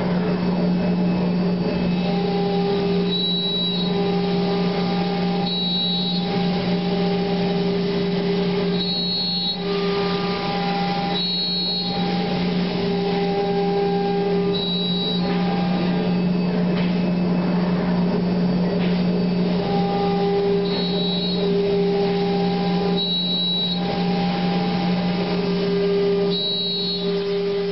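C.R. Onsrud Panel Pro CNC router running: a steady low hum, with pitched whines that switch on and off every second or two as the machine moves.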